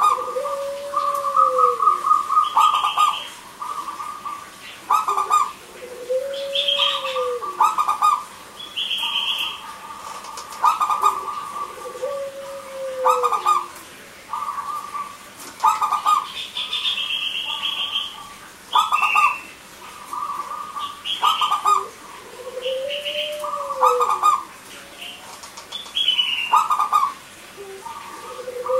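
Zebra doves (local perkutut), male and female, cooing back and forth in short repeated phrases. A lower coo rises and falls about every six seconds, with higher chirps in between.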